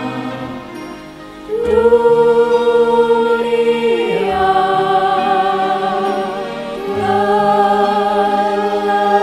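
Small mixed choir of six men and women singing long held chords. The singing drops softer about a second in, comes back loud on a sustained chord, then moves to new chords about four and seven seconds in.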